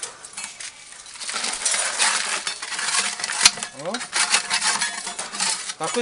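Dried droppings and seed husks being scraped out of a bird cage's droppings tray into a plastic bucket with a hand scraper: a dense, gritty scraping and rattling that starts about a second and a half in and keeps going. Near the middle there is a single click and a short rising squeak.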